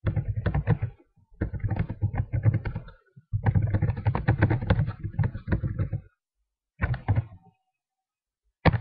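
Typing on a computer keyboard: quick runs of keystrokes with short pauses between them, and a single sharp key press near the end.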